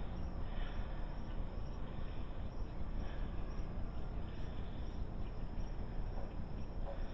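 Steady rushing of water circulating through an indoor pond's sump filter with its pump running. A faint high, wavering chirr sits above it.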